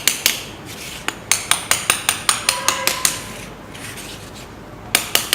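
Quick sharp taps, about five a second, in two runs with a pause between and a few more near the end: a small hammer tapping coil wires down into the slots of a DC motor armature during rewinding.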